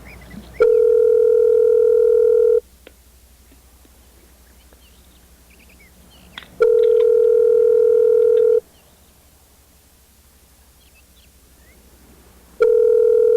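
Telephone ringback tone heard over the phone line: a steady two-second tone that comes three times with about four seconds of quiet between, the last starting near the end. It is the sign that the called phone is ringing and has not been answered.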